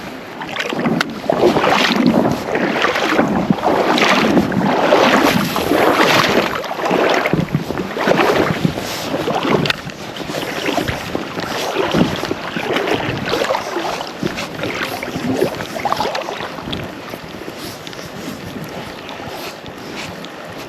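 Water sloshing and splashing in repeated strokes about once a second, louder in the first half and easing off about halfway through, with wind buffeting the microphone.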